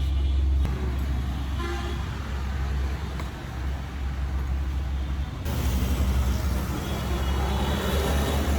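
Road traffic: vehicle engines rumbling steadily, with a short horn toot a little under two seconds in.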